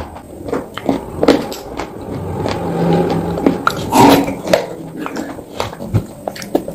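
Crunching and biting into a chalky block coated in wet clay slurry: irregular sharp snaps and crunches, a denser gritty stretch of chewing in the middle, and the loudest bite about four seconds in.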